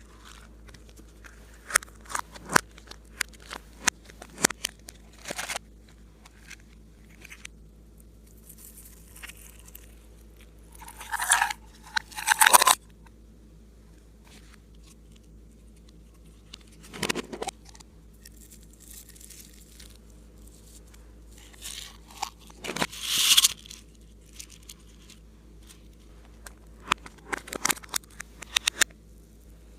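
Clay slime being squished and poked by hand: scattered sticky clicks and crackles, with a few longer, louder squishes about eleven, twelve and twenty-three seconds in.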